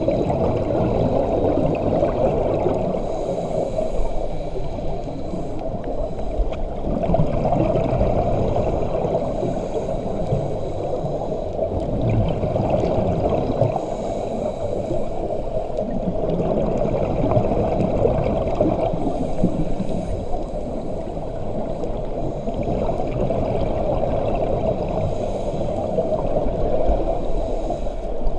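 Underwater scuba ambience heard through a camera housing: a steady muffled rush, with bubbles from divers' regulators gurgling in bursts about every five to six seconds as they breathe out.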